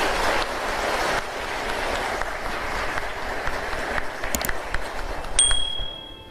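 A large audience applauding in a hall, a steady patter of many hands that fades out near the end. A brief high ringing tone sounds as the clapping dies away.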